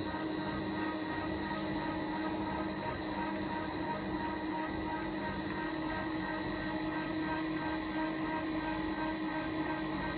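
Power feed unit on an RF-45 clone milling machine running, its motor and gearing giving a steady whine as it drives the table.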